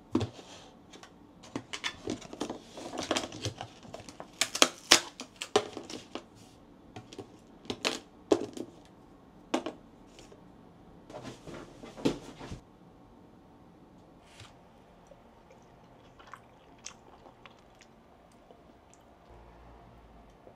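Thin plastic food packaging being handled: a dessert tray unwrapped, its band peeled off and its clear plastic lid opened, giving many sharp crinkles and clicks. After about twelve seconds only a few faint ticks remain.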